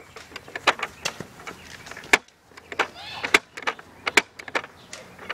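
Irregular sharp clicks and knocks, a dozen or so, the loudest about two seconds in.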